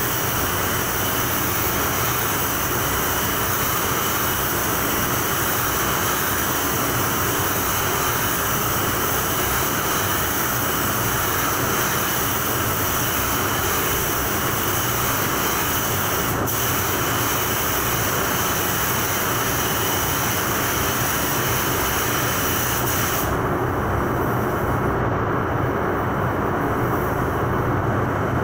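Compressed-air paint spray gun hissing steadily while spraying, over the steady rush of the paint booth's ventilation. The hiss breaks for an instant about two-thirds through and stops about five seconds before the end, leaving the booth air running.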